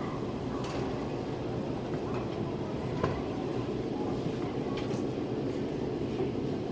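Railway station ambience: a steady low rumble with a few faint clicks.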